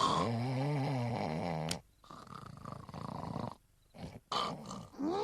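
A person snoring: one long, pitched, wavering snore of nearly two seconds, then quieter, rougher breaths.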